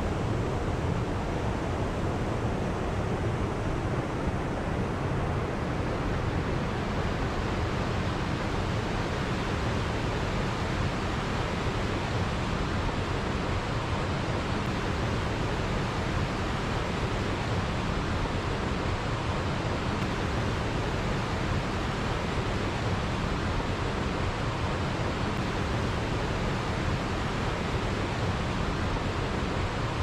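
Waterfall and mountain stream rushing steadily, an even, unbroken hiss of falling and running water.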